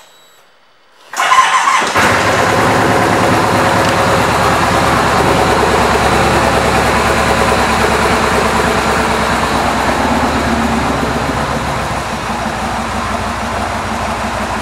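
2005 Kawasaki Vulcan 2000's big V-twin engine, breathing through an aftermarket 2-into-1 exhaust, starting about a second in and catching almost at once, then idling steadily.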